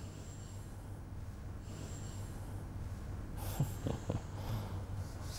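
Two short puffs of breath through the nose, a brief amused snort of a laugh, about three and a half seconds in, over a steady low hum.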